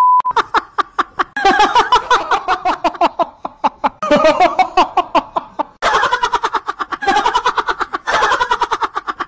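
A short beep, then rapid, high-pitched staccato giggling in several runs, about ten bursts a second, like a comic laugh sound effect.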